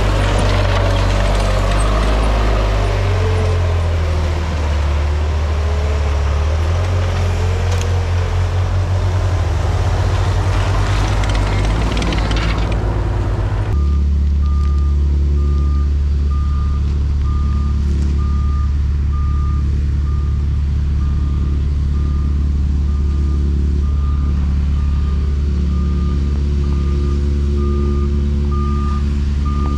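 An ASV RT-65 compact track loader running and working over gravel, with a whine that wavers up and down in pitch. About halfway through this gives way to a loaded triaxle dump truck's diesel engine running low and steady as it reverses, its backup alarm beeping at an even pace.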